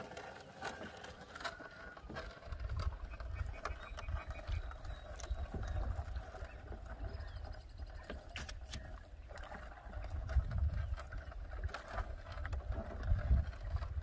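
Low, gusty rumble of wind buffeting the microphone out on the lake, setting in a couple of seconds in and swelling again near the end, with scattered sharp knocks.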